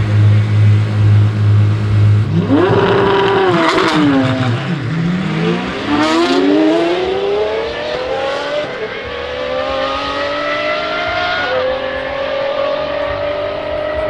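Two Apollo hypercars' naturally aspirated V12 engines running low and even at the start line, then launching at full throttle about two seconds in. The engines scream up through the gears, pitch climbing in each gear and dropping at each upshift, several times over as the cars pull away.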